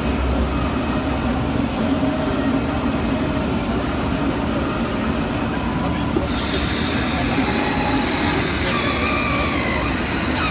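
Computer-controlled single-ply fabric cutting machine running with a steady mechanical hum. About six seconds in, a higher whine and hiss joins in, with tones that shift in pitch as the machine works.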